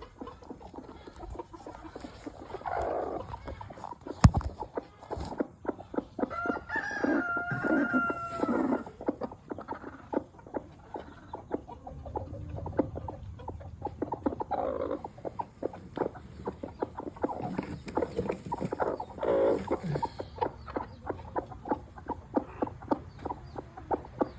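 Chickens clucking, with a rooster crowing once for about two seconds, starting around six and a half seconds in. A steady patter of quick clicks runs underneath the calls.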